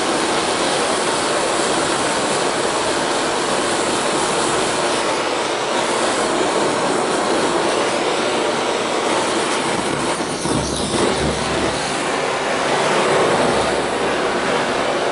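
Handheld gas blowtorch hissing steadily as its flame is held on a perforated metal pellet tube to light the wood pellets inside.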